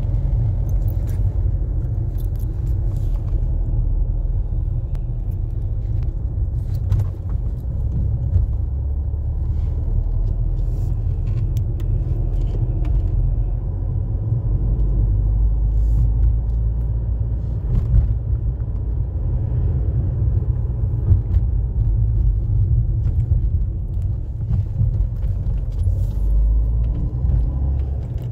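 Steady low road and engine rumble inside the cabin of a moving car, with a few small clicks and rattles.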